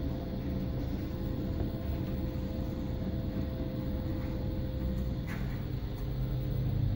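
Steady low hum with a faint steady whine from the NRG-Link's primary and secondary Wilo circulating pumps running, switched on because the solid fuel stove has passed its trigger temperature. A few faint clicks come about five seconds in.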